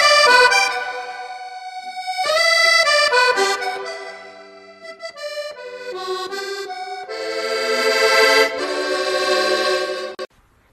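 Instrumental music of held chords and a melody on a reed-like instrument, cutting off suddenly near the end.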